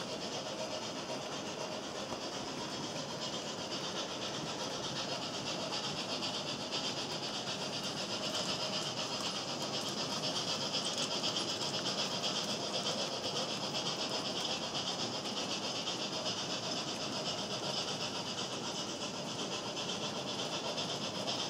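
HO-scale model train running on layout track: a steady whir and rail noise that swells slightly in the middle.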